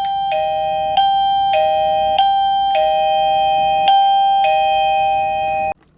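SGOKEEN wireless door alarm chime receiver playing an electronic melody, set off by the magnetic contact sensor pulling apart. The notes step between two pitches about every half second, and the tune cuts off suddenly near the end.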